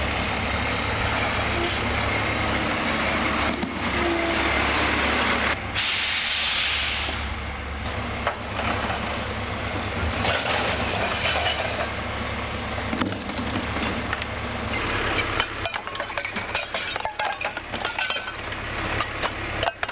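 Heavy lorry engine running steadily, with a loud hiss of air about six seconds in. In the last few seconds the engine hum drops away and scattered clinks and knocks take over.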